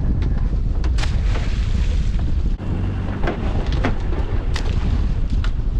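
Wind buffeting the microphone on a small open boat at sea, with the rush of water alongside. Several short, sharp clicks and knocks from gear being handled cut through it.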